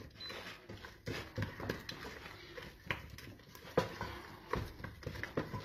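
A spatula mashing and stirring thick choux dough in a stainless steel pot as an egg is beaten in, with irregular knocks and scrapes against the pot.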